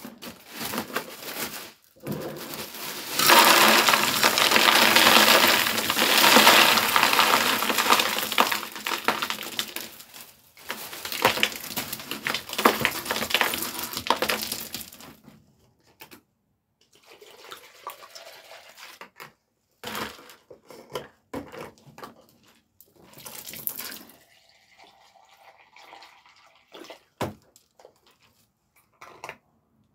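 Ice cubes pouring from a bag into a glass pitcher and spilling across a tabletop: a dense clatter of clinking ice for about twelve seconds. Then scattered clinks and knocks as the loose cubes are handled.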